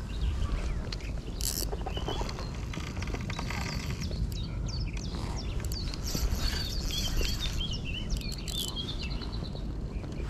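Small songbirds chirping and singing in short quick phrases, most busily in the middle, over a steady low rumble of wind on the microphone.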